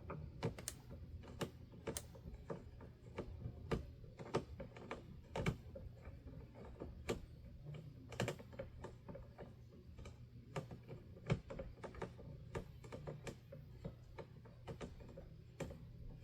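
Irregular light plastic clicks and taps as the front guard of a Honeywell HT-900 fan is turned and pressed against the fan body, being lined up with its screw posts.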